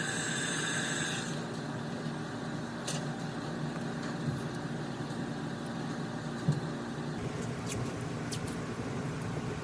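Steady whir and hum of an electric fan, with a high-pitched whine that stops about a second in and a few light clicks and taps.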